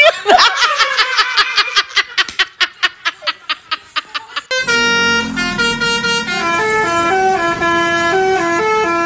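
A quick run of clicks that fades away, then, about four and a half seconds in, a 'telolet basuri' multi-tone bus horn starts playing a stepping melody and keeps on.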